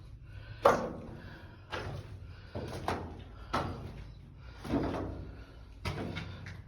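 Footsteps on a floor strewn with debris, about seven irregular steps roughly a second apart, each a sharp knock with a short echo; the first step is the loudest.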